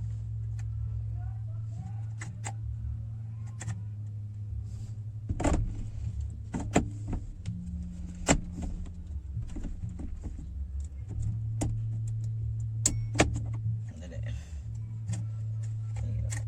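Scattered sharp metallic clicks and knocks from a steering wheel being worked onto its quick-release hub, over a steady low hum that drops out for a few seconds midway.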